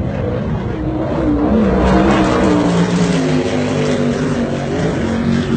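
High-speed racing powerboat engines running hard, their pitch wavering up and down and growing louder over the first two seconds.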